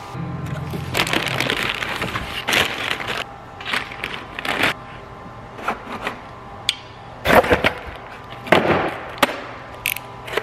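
Packaging being handled: plastic wrap crinkling and rustling, then cardboard boxes scraping and being slit open with a box cutter, in irregular rustles and sharp cracks.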